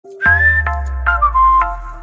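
Background music: a whistle-like melody gliding over short plucked notes, with a deep bass note coming in about a quarter second in and fading away.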